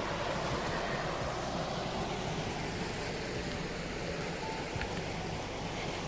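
Mountain creek water rushing and cascading over boulders: a steady, even rush.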